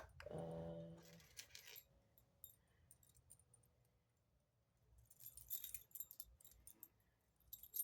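Faint metallic jingling and clicking in two bouts, about a second and a half in and again around five to six seconds: spinnerbait lures, with their metal blades and wire arms, being handled and put into a tackle box.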